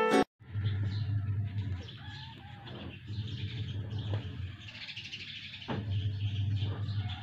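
A piano tune cuts off abruptly right at the start, then birds chirp and call in the background over a low hum that grows and fades.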